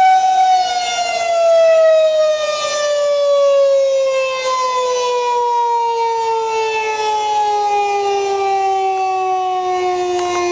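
Federal Signal 2001-130 rotating electromechanical warning siren winding down. Its tone holds for about half a second, then falls slowly and steadily in pitch, and it grows louder and softer every couple of seconds as the rotating horn sweeps past.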